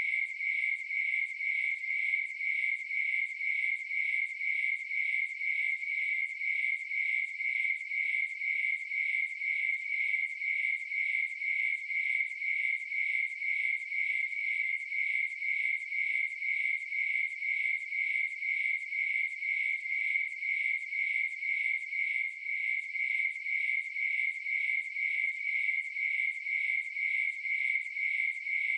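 Crickets chirping in a steady, regular rhythm, one high even tone repeating without a break.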